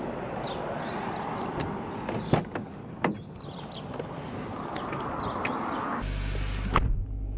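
Car doors clunking open and shut, then a car engine idling with a steady low hum from about six seconds in, and a door thudding shut just after.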